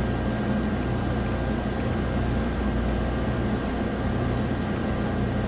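Steady low mechanical hum of background machinery with a few faint, steady high tones over it.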